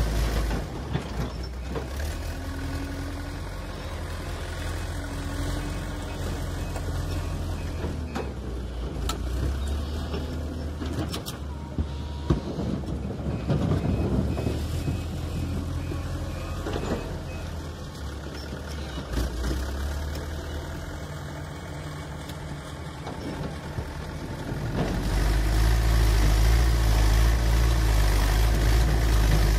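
Backhoe loader's diesel engine running through a work cycle, quieter through the middle with a few sharp knocks, then revving up louder near the end as it works the loader.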